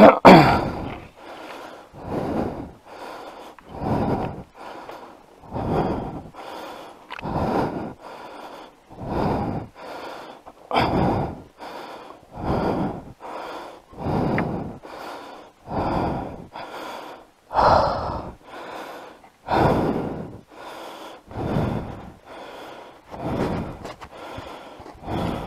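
A motorcyclist's heavy breathing close to the microphone: an even rhythm of breaths in and out, about one full breath every two seconds.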